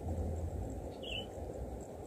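Outdoor ambience: a steady low rumble, with one short high chirp about a second in.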